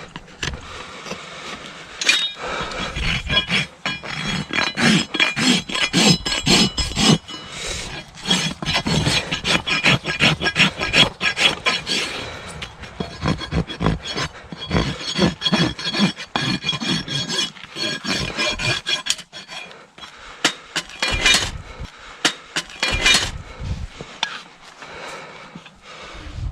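Farrier's rasp filing a horse's hoof: rapid runs of scraping strokes with a metallic ring, pausing briefly about three-quarters of the way through.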